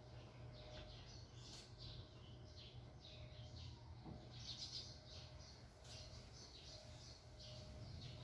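Small birds chirping faintly: many short, high calls in quick succession, over a low steady hum.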